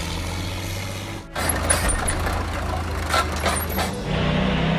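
A diesel engine running steadily. About a second in it cuts abruptly to a pickup truck doing a burnout: rough engine and tyre noise with thin high squeals. Near the end it settles into a steady engine drone.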